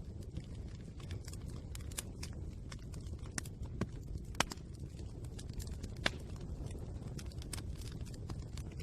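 Wood fire burning, crackling with frequent irregular pops and snaps over a steady low rumble; a few sharper pops stand out at about 2, 4.5 and 6 seconds in.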